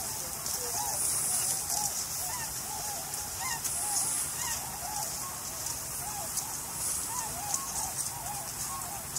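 A flock of wild waterbirds calling: many short, overlapping calls, several a second, over a steady hiss.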